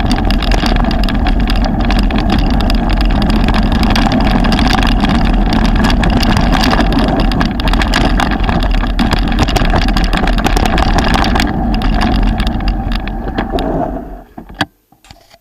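Mountain bike riding fast down a rough stony track, with wind rushing over the camera microphone and the bike rattling and knocking over the gravel with many sharp clicks. The noise dies away suddenly about a second before the end as the bike stops.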